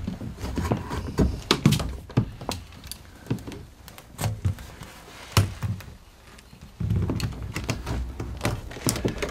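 Corrugated plastic waste hose being handled, bent and pushed against a wooden stud wall: irregular knocks, taps and scrapes. A low rumble comes in about seven seconds in.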